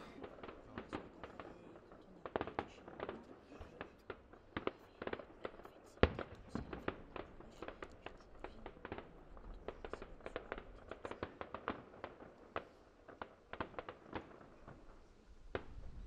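Distant fireworks going off: a quick, irregular string of bangs and crackling pops, with the loudest bang about six seconds in.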